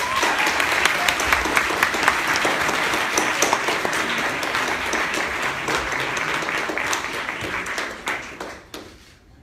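Audience applauding with dense clapping, which tails off about eight to nine seconds in.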